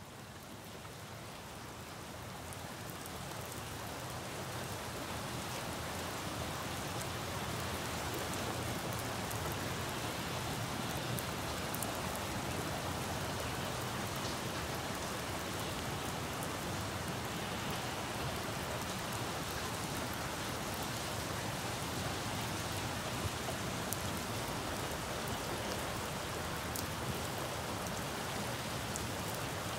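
Steady rain falling on leaves and pavement, with scattered drop ticks. It fades in over the first several seconds and then holds even. It is a field recording of the rain layered with a rain sound effect.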